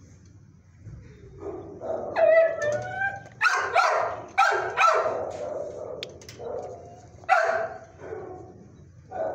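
Dog giving a short rising and falling howl-like whine about two seconds in, then a run of loud sharp barks and yelps, with one more loud bark a little past seven seconds.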